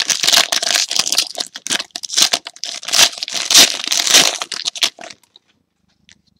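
Foil wrapper of a jumbo pack of trading cards being torn open and crinkled by hand, in a dense run of crackling that stops about five seconds in.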